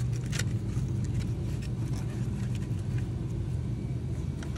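Plastic wiring-harness clips being pulled free on an engine's valve cover: a few light clicks and rattles over a steady low hum.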